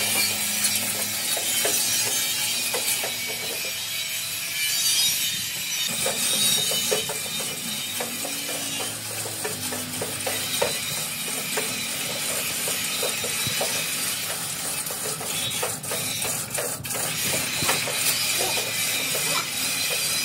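Dry moulding sand poured and sprinkled onto a sand-casting mould: a steady hiss dense with small, rapid clicks and clinks, with a few sharper knocks.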